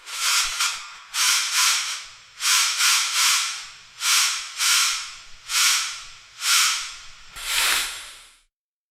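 Gauze pad rustling and crinkling as it is handled, in short bursts about once a second, some coming as quick doubles, stopping about eight and a half seconds in.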